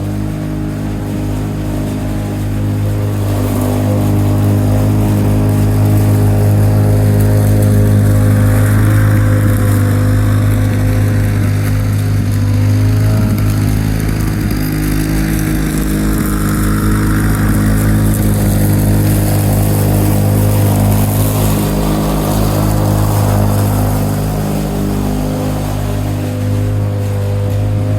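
1987 Lawn-Boy 8073B mower's two-stroke engine running steadily at a constant speed.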